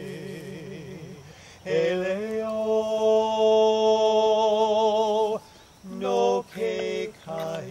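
A man's voice chanting in Hawaiian: a wavering, trembling line at first, then one long, loud held note of about three and a half seconds, followed by three short chanted phrases.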